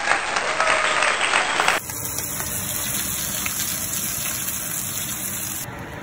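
A short burst of applause that stops abruptly about two seconds in, followed by the steady sizzle of salmon steaks frying in a pan.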